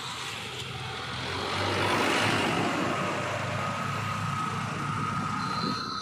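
JCB 3DX backhoe loader's diesel engine running as the machine drives past on the road, louder about two seconds in, with a faint steady whine in the second half.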